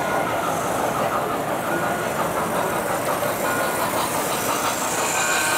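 Tinplate standard gauge model train running on three-rail track: a steady mechanical running noise of the locomotive's motor, gears and wheels on the rails.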